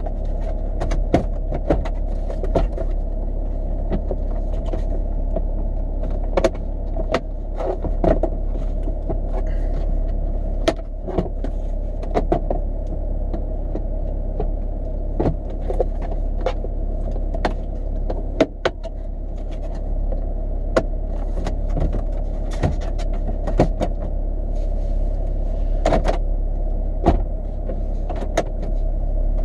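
Steady hum inside a car, with irregular plastic clicks and knocks as the cabin air filter housing behind the Toyota Prius glove box is handled, a few of the knocks louder than the rest.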